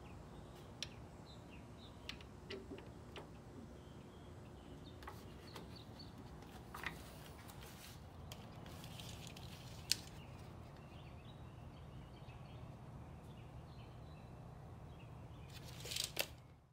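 Quiet workshop background with a steady low hum, broken by scattered light clicks and taps as the table saw's rip fence is slid along its rail and set. A short louder rustle comes near the end.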